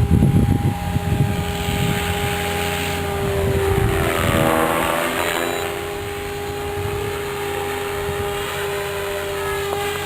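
MSH Protos electric RC helicopter in flight, its brushless motor and main gear giving a steady high whine over the rotor noise. Wind buffets the microphone in the first second or so. About four seconds in, the sound swells and shifts as the helicopter passes close.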